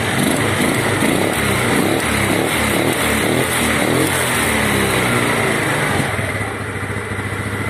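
Yamaha Mio Sporty scooter's single-cylinder four-stroke engine revved with the throttle, its pitch rising and falling for several seconds, then settling back toward a steady idle near the end. It is running on a freshly cleaned and adjusted carburetor that no longer makes it cough or stumble.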